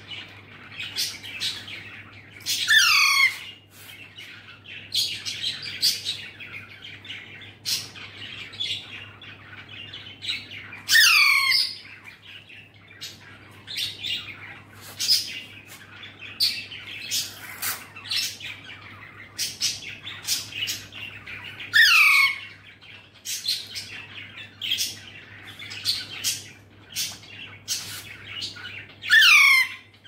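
Young Alexandrine parakeet calling: four loud screeches, each falling sharply in pitch, spaced several seconds apart, with many short chirps and clicks in between.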